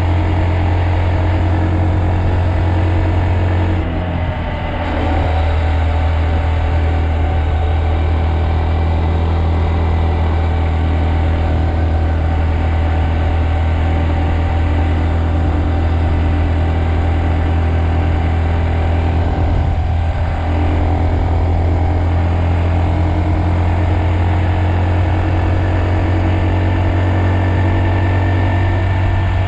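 Honda Monkey's single-cylinder four-stroke engine running steadily under way. The engine note briefly dips and changes about four seconds in and again around twenty seconds.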